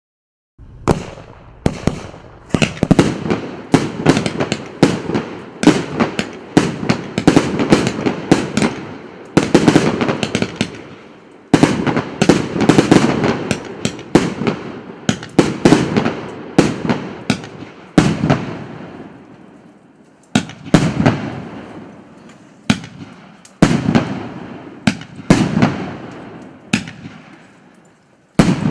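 Firework battery (cake) P8273 «Самый самый» firing: dense strings of sharp shots and cracking bursts in volleys, each dying away before the next one begins.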